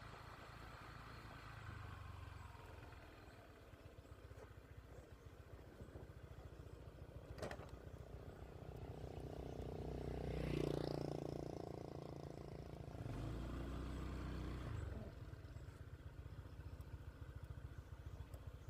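A motor vehicle passing at a distance: a faint engine sound swells with rising pitch about ten seconds in, then dies away, with a second, lower swell a few seconds later. Low rumble throughout and a single sharp click about seven and a half seconds in.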